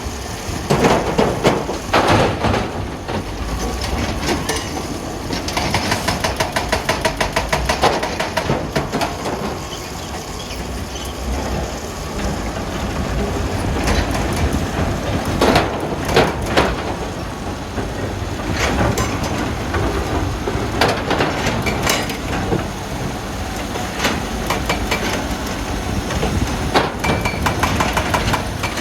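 Heavy wheel loader working a rock pile, its diesel engine running steadily under irregular loud knocks and clanks of rock against steel. A fast rattle runs for a few seconds about five seconds in.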